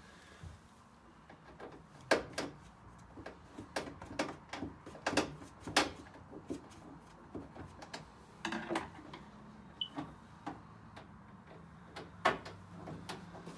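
Scattered clicks and knocks of a screwdriver and the combi boiler's metal casing being handled as two screws are undone and the front flap is pulled down.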